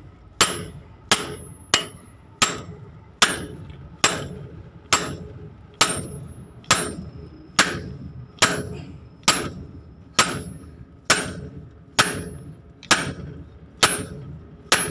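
Steady, evenly paced hammer blows on a steel pipe set over the kingpin of a Hino truck's steering knuckle, driving the kingpin. There are about eighteen strikes, a little under one a second, each a sharp metallic clang with a brief high ring.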